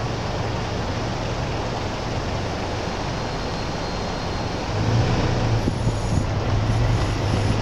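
Loud, steady vehicle and street noise: a rushing haze with a low hum underneath that grows louder about five seconds in.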